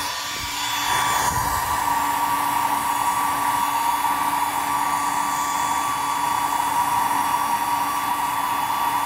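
Handheld hair dryer running steadily: a high motor whine over a rush of blown air, dipping briefly about a second in.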